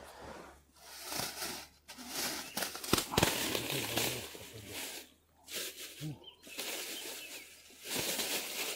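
Clear plastic bag rustling and crinkling as it is handled and opened, in stretches with short pauses, with a sharp knock about three seconds in.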